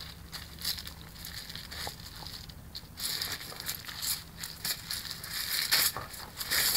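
A Keeshond dog crunching ice cubes, with irregular crisp crunches. They are sparse at first and grow louder and more frequent about three seconds in.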